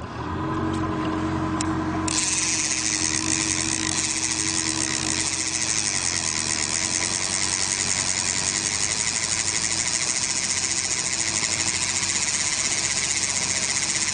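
Fishing reel's clicker ratcheting rapidly and evenly as lead core line pays out behind the boat, starting suddenly about two seconds in. Under it a boat motor runs at a steady low hum.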